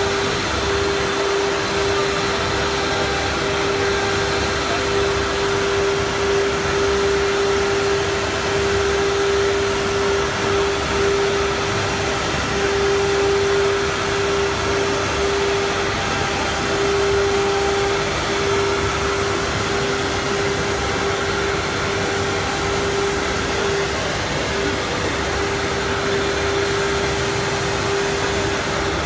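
SGMNC automatic loading/unloading CNC router cutting a wood panel: its spindle holds one steady hum over a constant rushing noise from the machine and its dust extraction.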